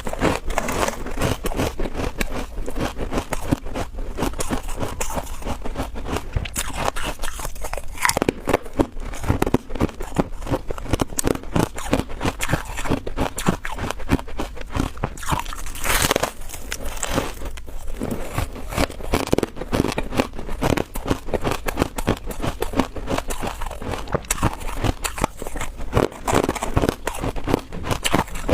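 Close-up crunching and chewing of freezer frost, a dense run of crisp crackles that continues without a break.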